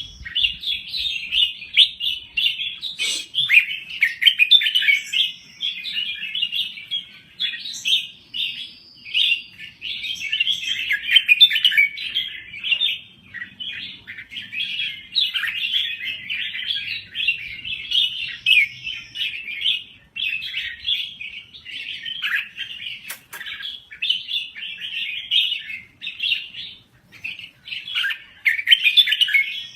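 Red-whiskered bulbul singing a nearly unbroken run of quick, varied chirping and warbling phrases, with a few short pauses.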